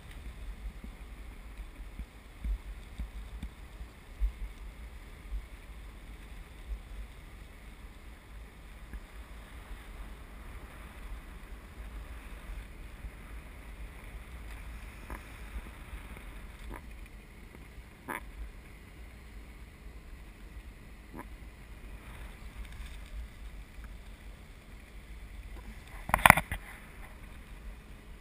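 Wind buffeting the microphone of a camera hanging from a parasail harness: a steady rushing noise with low rumbling gusts and a few faint clicks. About two seconds before the end comes one sharp knock, the loudest sound here.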